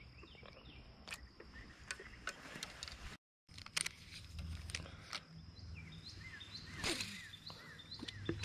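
Faint outdoor ambience at a pond: small handling clicks and taps from the angler and his rod, with short bird chirps in the second half and a louder brief swish around seven seconds in. A moment of dead silence comes a little after three seconds in.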